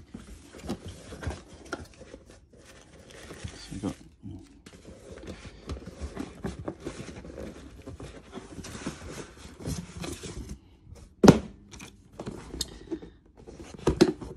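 Cardboard shoe box and shipping box being opened and handled: irregular rustling, scraping and light clicks of cardboard and paper, with a sharp knock about eleven seconds in and another near the end.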